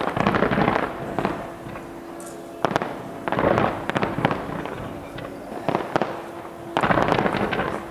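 Fireworks display: sharp bangs, each followed by a dense burst of crackling. These come in three clusters, at the start, about three seconds in and about seven seconds in.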